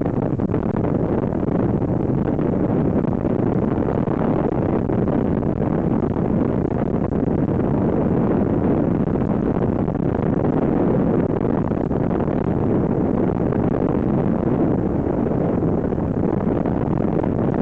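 Steady, dense noise of a moving inflatable boat: its outboard motor, rushing river water and wind buffeting the microphone blended into one unbroken sound.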